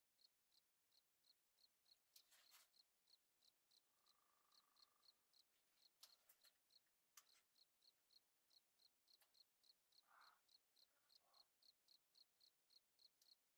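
A cricket chirping faintly and steadily, about three high chirps a second, with a few faint clicks in between.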